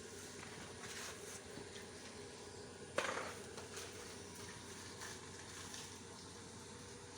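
Arc welding on a steel pipe: a faint, steady crackling hiss, with one sharp knock about three seconds in.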